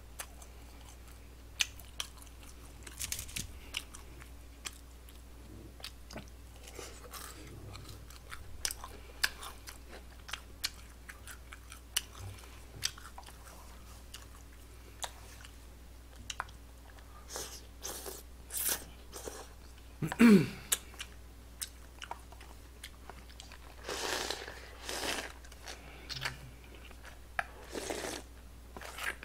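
Close-miked eating of jjamppong, spicy seafood noodle soup: chewing and slurping of noodles and broth from a disposable bowl, with many small clicks throughout. About two-thirds through comes one louder, short sound falling in pitch.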